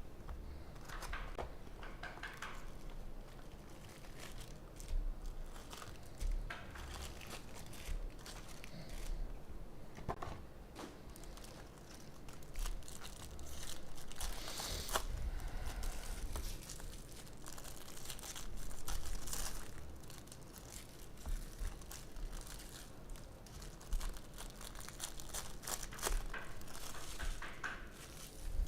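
Plastic wrapping crinkling and tearing in irregular stretches as a sealed box of baseball card packs is unwrapped and the packs are torn open.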